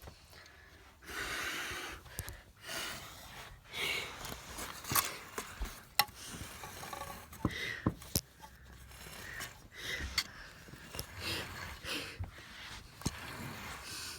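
Airliner cabin noise during landing: uneven swells of rushing noise, with scattered sharp knocks and rattles throughout.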